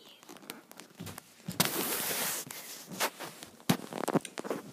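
Close handling noise: a series of knocks and taps with a brief loud rustling scrape, as a hand moves against a tablet near its microphone.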